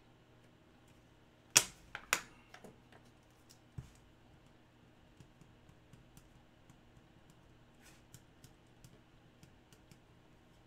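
Two sharp clicks near two seconds in, then scattered faint ticks and taps, from trading cards being handled and slipped into plastic sleeves.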